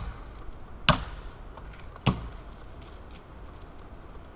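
Wetterlings Forest Axe chopping into the trunk of a dead standing tree: three sharp blows about a second apart, then a pause of about two seconds.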